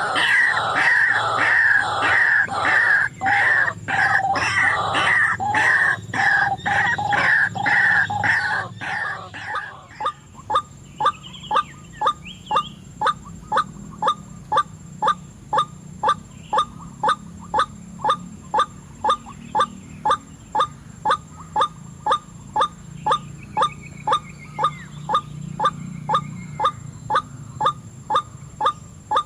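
White-breasted waterhen calling: a dense, loud jumble of calls for about the first ten seconds, then a single sharp note repeated steadily about twice a second.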